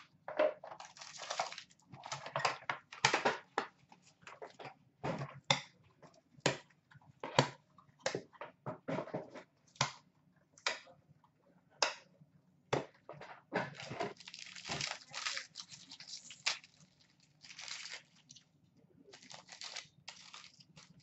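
A trading card box being opened and the wrapped card pack inside torn open by hand: a long run of short paper-and-plastic crinkles, sharp clicks and tearing noises with brief pauses between them.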